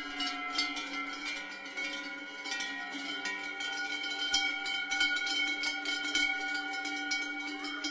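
Cowbells on a herd of passing cows, ringing and clanking together close to the microphone: a continuous jangle of many overlapping bell tones.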